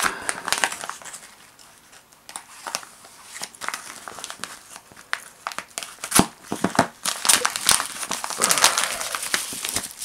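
Newspaper wrapping crinkling and rustling as it is cut open with a pocketknife blade and unfolded by hand. There is a sharp click about six seconds in, and heavier crinkling over the last few seconds.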